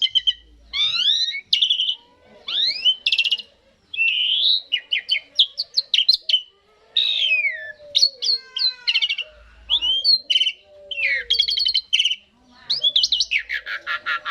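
Javan pied starling (jalak suren) singing: a varied run of whistled glides, rapid rattling trills and harsher notes, in phrases about a second long separated by short pauses.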